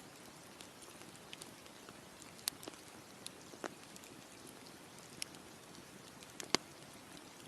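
Campfire crackling: irregular sharp pops and snaps over a soft steady hiss, the loudest pops about two and a half and six and a half seconds in.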